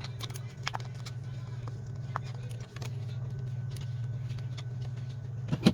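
Light clicks and taps of a smartphone being taken apart by hand, over a steady low hum, with a quick cluster of louder clicks near the end.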